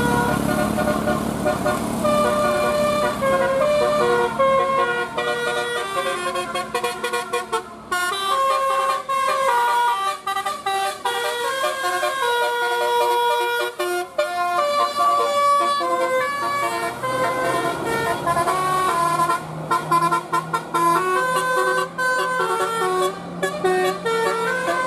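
Bus telolet horn, a multi-tone electric horn, playing a long stepping melody of held notes that change pitch every fraction of a second, over the low hum of the bus engine.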